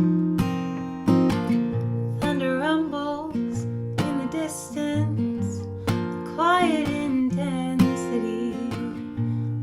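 Acoustic guitar strummed and picked in a song's opening, with a sung voice coming in briefly around three seconds in and again near seven seconds.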